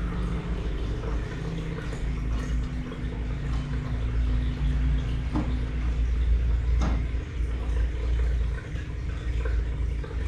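Steady low hum and running water of an aquarium tank, with a few soft knocks about two, five and seven seconds in.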